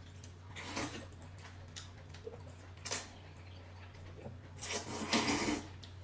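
A few short rustling, rubbing noises over a low steady hum, the longest about five seconds in.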